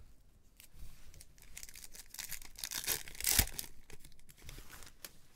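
Foil wrapper of a Topps Chrome Sapphire Edition baseball card pack crinkling and being torn open. The tearing builds over about a second and ends in a sharp rip about three and a half seconds in.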